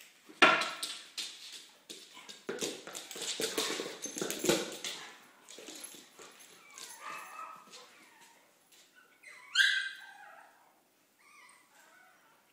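A dog at play on a hardwood floor: a busy run of clicks and knocks in the first few seconds, then a few short whimpers, the loudest near the ten-second mark.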